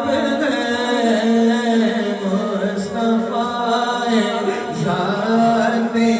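Male voice chanting a naat in a long, drawn-out melodic line, holding and bending notes with no clear words.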